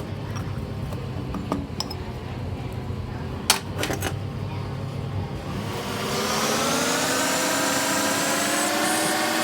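Lathe motor spinning up: a low hum with a few metallic clinks, then a whine that rises in pitch from about halfway through and settles into a steady running whine.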